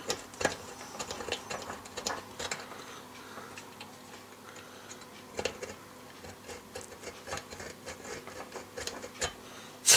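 Manicure nail file scraping and ticking against the small contacts of an electric oven's thermostat relay in irregular short strokes, filing the worn, uneven contacts flat so they meet over their whole face. A sharp click just before the end.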